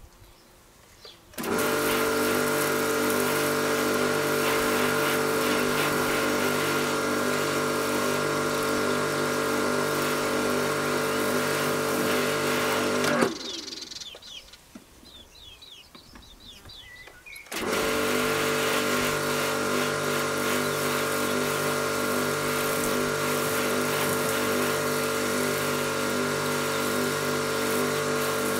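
Ruris Pro Power Jet 1900 pressure washer's induction motor and pump running while spraying foam through the multijet lance: a steady hum with spray hiss above it. It runs for about eleven seconds, cuts out for about four, then starts again and runs steadily.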